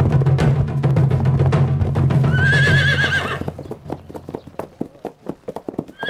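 A young unbroken stallion whinnies about two seconds in, over background music with a low drone that fades out soon after. Its hoofbeats then clatter unevenly as it is ridden, and it begins another whinny near the end.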